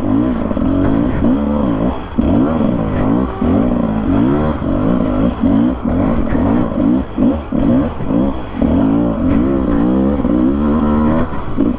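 Dirt bike engine revving up and down again and again, the throttle opened and shut every second or so, as when picking a way through a slow, technical trail section.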